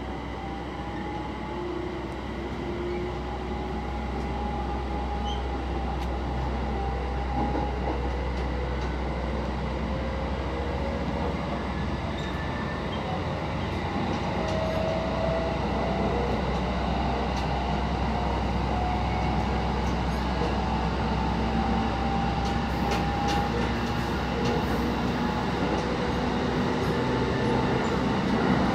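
Electric train pulling away from a station, heard from inside the carriage: motor whine slowly rising in pitch over the steady rumble of wheels on rail, growing gradually louder as it gathers speed.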